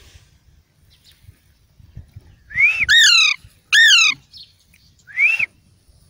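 Young Alexandrine parakeet calling loudly: four ringing, rising-and-falling calls, three close together around the middle and one near the end.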